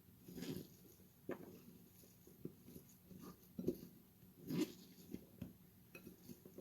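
Hands squishing and kneading raw ground beef mixed with chopped vegetables in a bowl: faint, irregular soft squelches, a few stronger ones spaced a second or so apart.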